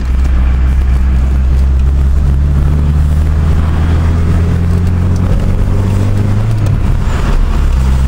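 1984 Mazda 626's FE four-cylinder engine and exhaust running under way, heard from inside the cabin: a steady low drone with road noise, shifting slightly in pitch past the middle.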